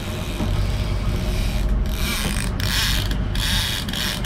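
A fishing reel ratcheting in short bursts, three times in the second half, as a hooked king salmon is played on a trolling rod. A low, steady boat-engine hum runs underneath.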